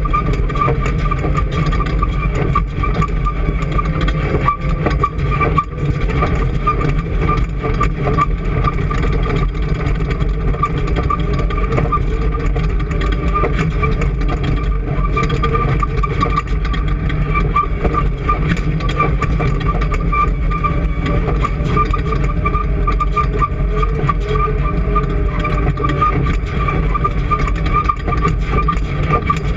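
Vehicle engine running steadily: a constant low drone with a steady whine above it, unchanging throughout.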